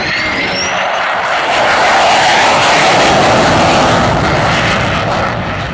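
Single-engine F-16 Fighting Falcon jet making a low flyby: loud rushing jet noise that swells to its loudest about two to four seconds in, then starts to ease off near the end.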